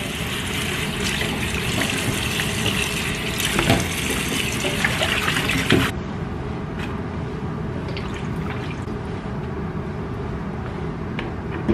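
Kitchen tap running into a stainless steel sink while bok choy is rinsed under the stream. About six seconds in the sound cuts to a quieter, duller rush of water with a few light knocks.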